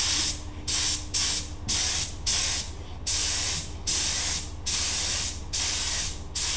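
Compressed-air spray gun spraying rubber-based contact adhesive in short, repeated hissing bursts, about one and a half per second.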